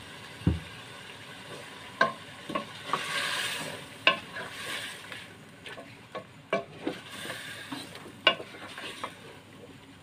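Wooden spoon stirring chicken, potatoes and tomatoes in an aluminium pot, knocking against the pot about ten times at an uneven pace, over a soft sizzle of frying that swells about three seconds in.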